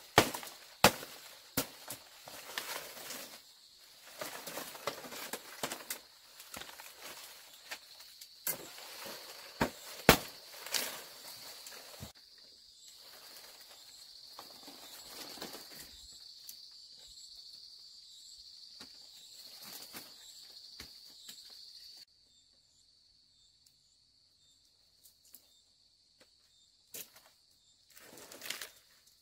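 Irregular sharp knocks and clatters of bamboo being worked by hand, over a steady high-pitched drone of insects. About two-thirds of the way through, everything cuts off abruptly to near silence, with only a few faint ticks.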